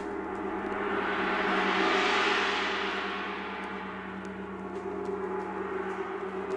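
Large hanging gong ringing in a long wash of sustained humming tones and shimmer. It swells to a peak about two seconds in, fades, then builds again near the end.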